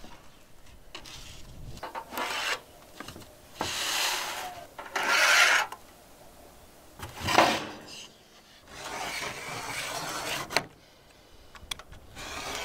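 Several short bursts of rubbing and scraping as a thin metal sheet and a plywood board are slid and handled on a wooden workbench.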